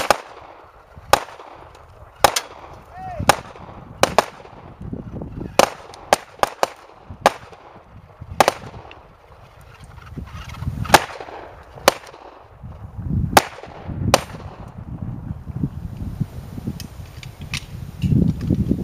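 Sharp single gunshots from small guns in a shooting game, roughly one a second with a quick run of four around six seconds in and fainter shots near the end, over a low rumble.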